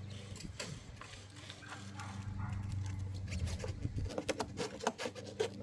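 A battery-lifting tool being fitted onto a truck battery: scattered clicks and knocks of the tool's parts against the battery, coming quickly in the last second and a half. A steady low hum sounds underneath.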